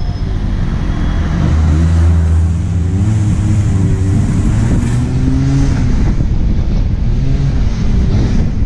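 A motor vehicle's engine running under way, its pitch wavering up and down through the middle, over steady road noise.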